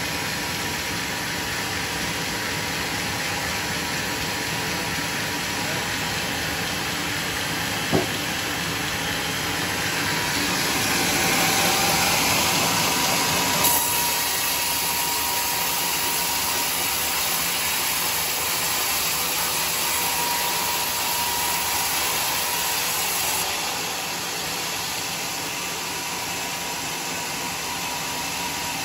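Homemade band sawmill running, its band blade cutting lengthwise through a teak beam: a steady hissing machine noise that grows louder and brighter about ten seconds in and eases off again about 23 seconds in. A single sharp knock about eight seconds in.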